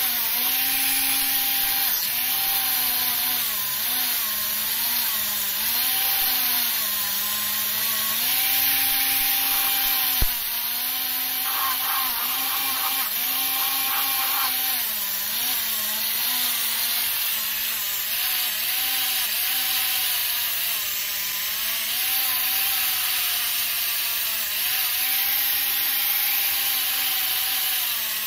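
Electric angle grinder with a wire brush wheel running continuously, scouring rust off a rusty water pump housing. The motor's hum dips in pitch each time the brush is pressed into the metal and recovers as it eases off, over a steady scraping rasp.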